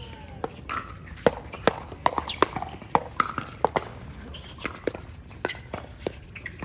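Pickleball paddles striking a plastic pickleball during rallies: a quick irregular run of sharp, hollow pocks, several a second, some of them from play on neighbouring courts.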